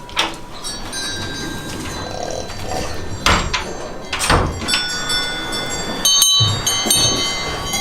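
Cowbells on grazing cows clanking irregularly, several bells ringing at different pitches and overlapping, with a few sharper knocks as the bells swing.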